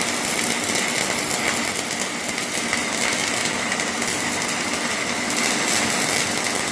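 MIG welding arc crackling steadily while an LEV fume extraction unit's fan runs, with a faint steady whine running through the noise.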